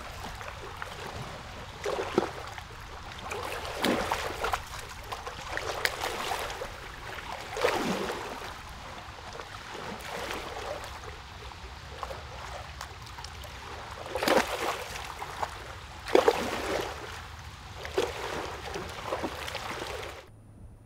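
Running water, steady with louder splashing surges every few seconds; it cuts off suddenly near the end.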